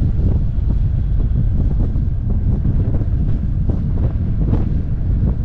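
Heavy wind buffeting on the microphone of a motorcycle-mounted camera while riding, a steady low rumble with a few short knocks.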